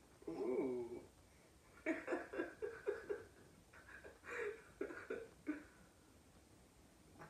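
A woman laughing softly: a run of short, breathy laughs of a few per second, starting about two seconds in and lasting some three seconds. A brief voice sound comes just before it, in the first second.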